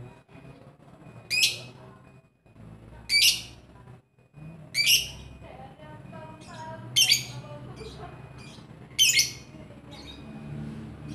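A lovebird calling: five loud, shrill calls about two seconds apart, each under half a second, with softer chirps in between.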